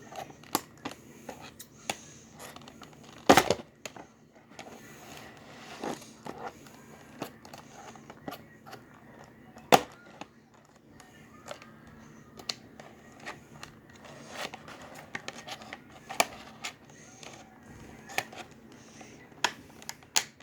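Action-figure box packaging being opened by hand: crinkling and tearing, with scattered clicks and knocks. The loudest knocks come about three seconds in and again near ten seconds.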